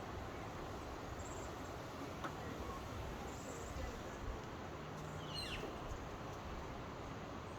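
Steady rush of ocean surf, with a few short high bird chirps and one quick falling bird call about five seconds in.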